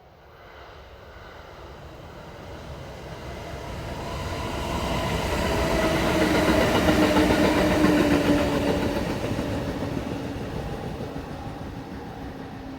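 Kintetsu Kyoto Line electric train passing by: the rumble builds steadily to its loudest about seven seconds in, then fades as the train moves away. A humming tone rides on the noise and drops slightly in pitch after the train passes.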